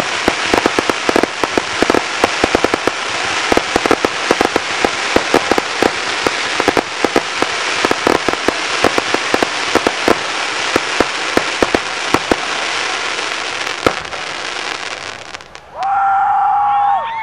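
Consumer 1.4G aerial fireworks crackling: a dense rattle of many small pops over a steady hiss, dying away about fifteen seconds in. Then the crowd starts cheering and whistling.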